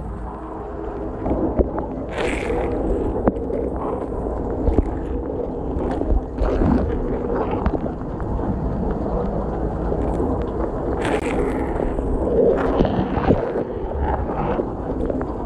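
KitchenAid KDTM604 dishwasher mid-wash, heard from inside the tub: water from the spray arms and jets pounds steadily on the racks and the camera, with the wash pump humming underneath. Louder splashes strike now and then as the jets sweep past.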